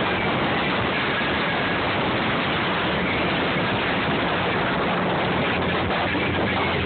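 Steady rush of wind and churning wake water at the back of a motorboat under way, with a low, even engine hum underneath.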